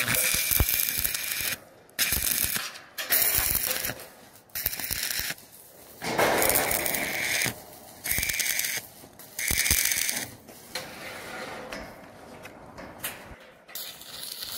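Stick (arc) welding: the electrode's arc crackles and hisses in short runs of about a second each. The arc is struck and broken about seven times in a row, and the sound grows fainter near the end.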